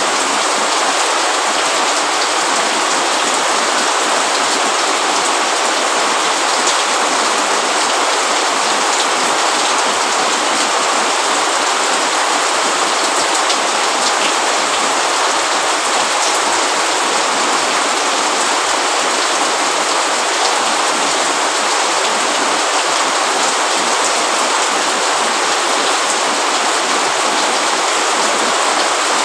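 Steady rain falling: a dense, even hiss of many drops that holds unchanged throughout.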